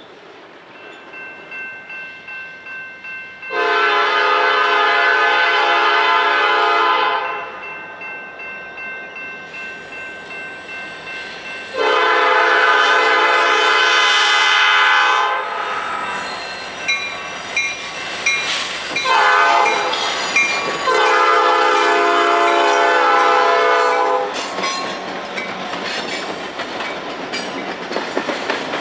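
Norfolk Southern freight locomotive's air horn sounding the grade-crossing signal, long, long, short, long, its chord of several tones held a few seconds on each long blast. Between the blasts the wheels click over the rail joints, and near the end the train runs past with steady clickety-clack.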